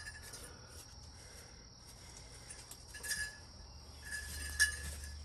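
A few faint clicks and light knocks as a small engine side cover on a Suzuki GSX-R600 is worked back and forth by hand to free it, the loudest about four and a half seconds in. A steady high-pitched tone runs underneath.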